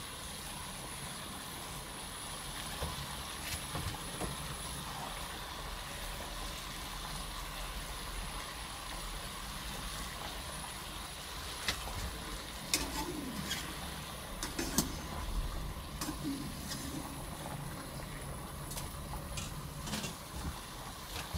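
Large pot of water at a rolling boil with sticky rice balls cooking in it: a steady bubbling rumble, with scattered sharp ticks and pops in the second half.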